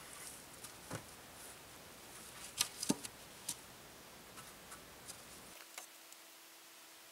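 Scattered light knocks and clicks of peeled wooden poles being handled and fitted against a pole roof frame, the loudest two close together about three seconds in.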